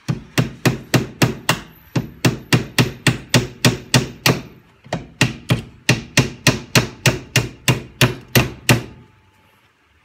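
Hammer driving nails into an OSB (chipboard) hive box: steady blows about three a second in three runs, with short breaks about two and five seconds in, stopping near the end.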